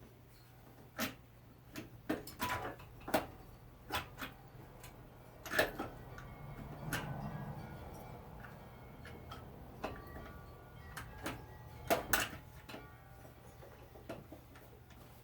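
Irregular clicks and knocks of hand tools and metal parts being handled during a small-engine starter swap, some ringing briefly, over a faint steady hum.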